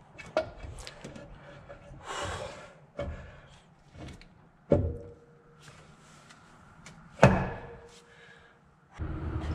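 Four sharp metal clunks, the loudest near the end, with a scrape between the first two, as the cast-iron cylinder head of a Ford 200 inline-six is worked into place on the block; two of the clunks leave a short metallic ring.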